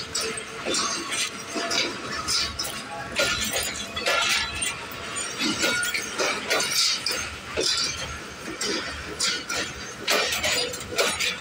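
Pakistan Railways passenger coaches rolling past at close range as the train arrives, with a run of sharp metallic clanks and clatter from wheels and couplings over a low rumble, about two clanks a second.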